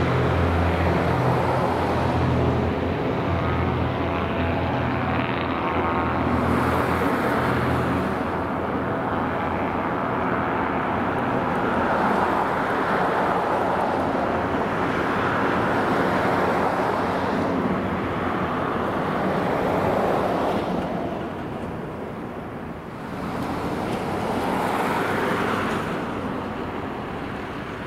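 Cessna 337 Super Skymaster's front and rear twin piston engines and propellers at takeoff power, a loud, steady engine drone through the takeoff roll and climb-out. The drone swells and ebbs, dips about three-quarters of the way through, swells again, and fades near the end as the plane climbs away.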